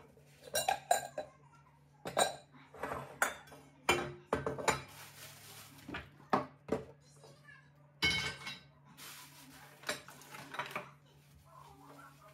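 Glass jars and bottles clinking and knocking as they are picked up and set down on a stone countertop, a dozen or so sharp knocks at irregular intervals. Twice in the middle there is a stretch of rubbing, like a cloth wiping.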